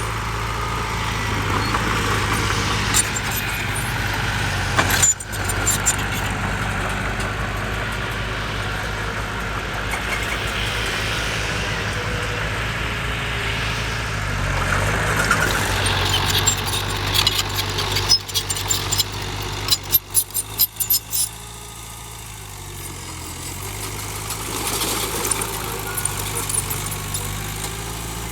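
Heavy diesel engine of earth-moving machinery running steadily, with a run of sharp clattering knocks from a little past the middle until about three-quarters through, after which it gets quieter.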